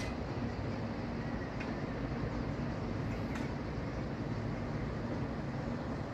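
Steady low rumble of distant city traffic heard from high above the streets, with a few faint ticks.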